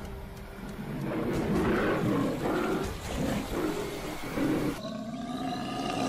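Big cat growling in a string of rough, uneven snarls. Near the end the sound cuts to a long animal call held at a steady pitch.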